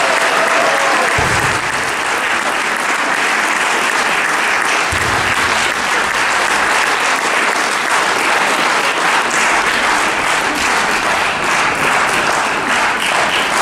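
Theatre audience applauding, dense steady clapping as the music's last note dies away just after the start. Two short low thuds sound about one and five seconds in.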